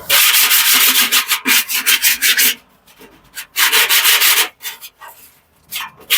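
Rapid back-and-forth scrubbing of a rusty spot on the washing machine's metal drum, cleaning it down before a drum lifter is fitted. It comes in three bouts of quick strokes: a long one at the start, a shorter one in the middle and a brief one near the end.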